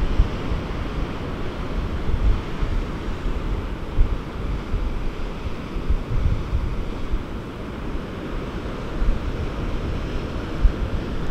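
Pacific Ocean surf breaking and churning over the rocky shore, a steady rushing wash, with gusts of wind buffeting the microphone.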